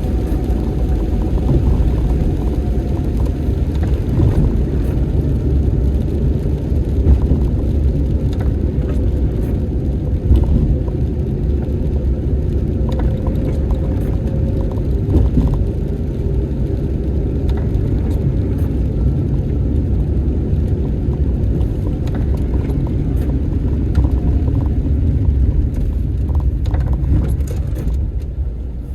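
Car driving on a highway: a steady low rumble of road and engine noise that eases off slightly near the end.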